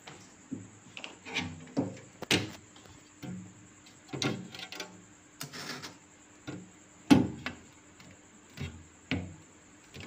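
Refrigerator door and plastic compartments handled as things are put inside: a string of knocks and plastic clatters with a brief rustle, the loudest knock about seven seconds in.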